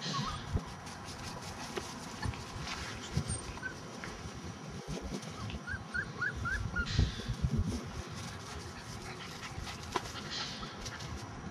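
Kelpie puppies whimpering: short rising squeaks, a run of four quick ones about six seconds in, over rustling and soft bumps as the puppies scramble against the camera.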